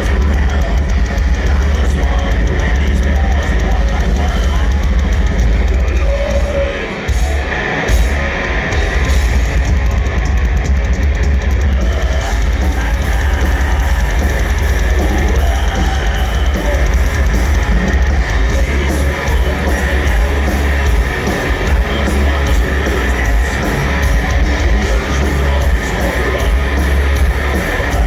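Live black metal band playing: distorted electric guitars and bass over a drum kit, with a brief break in the drumming about seven seconds in.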